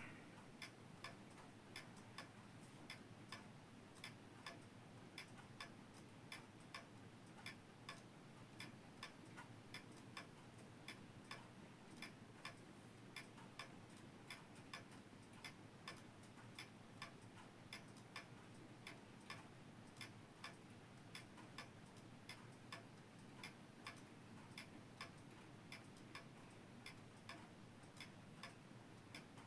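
Citizen Grenoble N pendulum clock ticking faintly and steadily, an even tick-tock with no chime.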